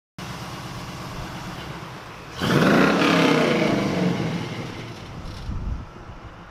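Square-body Chevrolet C10 pickup's engine idling, then revving about two seconds in as the truck accelerates away, the sound fading as it drives off.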